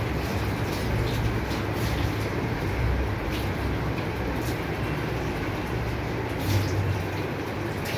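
Water poured from a jug splashing over a dog standing in a galvanised metal tub, in several short splashes, over a steady low rumble.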